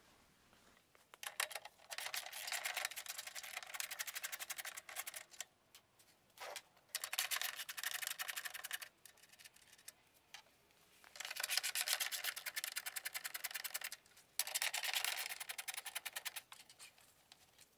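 Socket ratchet wrench clicking rapidly in several bursts of a few seconds each, as nuts are run off their studs.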